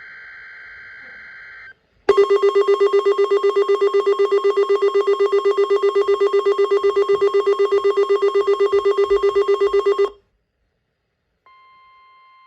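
Weather radio receiver sounding its alert: the end of a steady high-pitched data tone, then a loud, fast-pulsing trilling alarm beep for about eight seconds that cuts off suddenly. After a second of silence the faint, steady warning alarm tone of the weekly NOAA Weather Radio test comes in.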